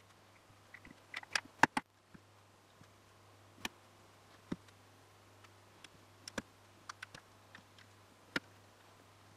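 LEGO pieces clicking as small plastic plates and tiles are pressed onto a model: scattered sharp clicks, a quick cluster of several about a second and a half in, then single clicks every second or so.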